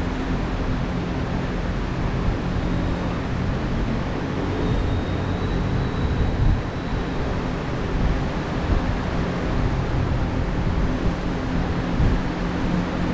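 Large workshop fan running: a steady rush of air with a low hum underneath.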